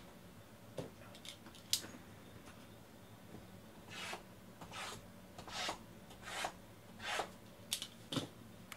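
Shrink-wrapped cardboard trading-card boxes being slid and set down on a stack: a few light clicks, then a run of about seven short scraping rubs, roughly one every 0.8 seconds, in the second half.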